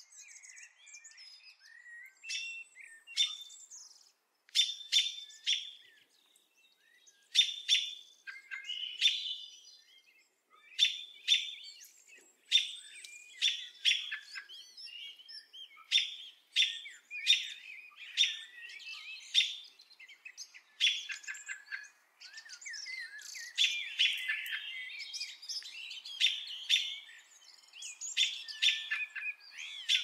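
Birds chirping and calling together: a busy chorus of short, sharp chirps and quick trills, several overlapping at once with hardly a gap.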